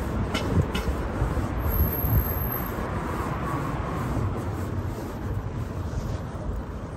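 Wind rumbling on a phone microphone, with a steady outdoor hiss and two light clicks under a second in.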